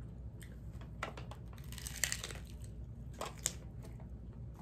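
A hard corn taco shell crunching as it is bitten and chewed, in irregular sharp crackles that are thickest about two seconds in and again around three and a half seconds.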